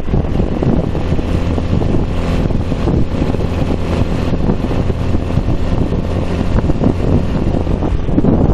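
Wind buffeting the microphone over the steady running of a three-speed moped's small engine, cruising at an even speed.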